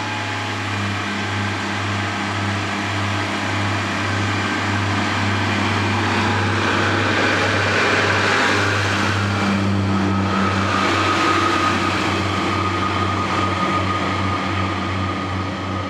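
Train running: a steady low hum with a regular pulsing beat, and running noise that swells toward the middle. A steady whine comes in about ten seconds in.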